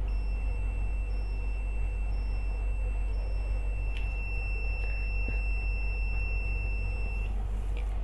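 Alarm buzzer of an Arduino laser tripwire system sounding one steady high-pitched tone, set off because the laser beam to the LDR light sensor has been broken; it cuts off about seven seconds in. A steady low hum runs underneath, and there is a single click about four seconds in.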